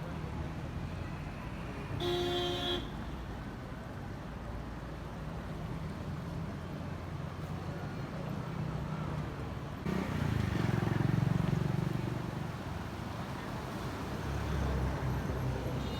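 Road traffic with a steady low engine rumble. A vehicle horn toots once, briefly, about two seconds in, and a louder engine rumble swells past around ten seconds in.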